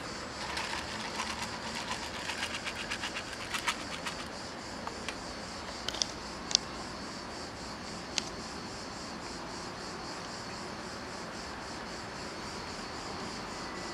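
Steady high chirring of insects, crickets or similar. Over the first few seconds there is a quick run of soft steps on cobblestones, and a few sharp clicks follow in the middle.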